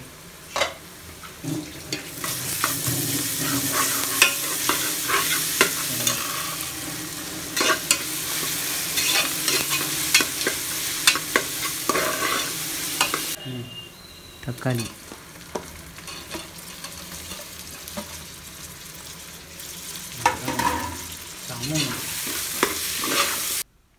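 Onions and ginger-garlic paste sizzling in hot oil in a pressure cooker, stirred with a ladle that clicks and scrapes against the pot. The sizzle drops away about halfway through. Stirring with clicks comes back near the end, once chopped tomatoes are in.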